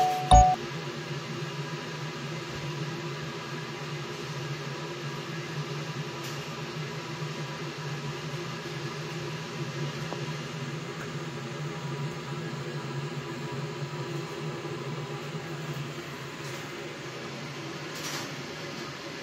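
Music cuts off about half a second in, leaving the steady hum of a running kitchen appliance, with a few faint clicks.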